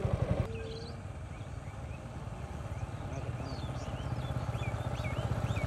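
A Yamaha MT-15's single-cylinder engine idling with an even, fast low pulse, which drops in level about half a second in. From then on, small birds chirp repeatedly over it.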